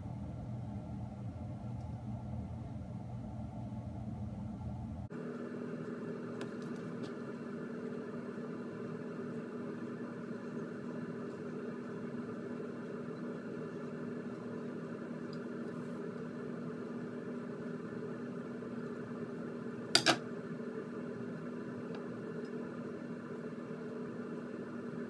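A steady low electrical hum that changes abruptly about five seconds in to a higher-pitched hum, with one sharp click near the end.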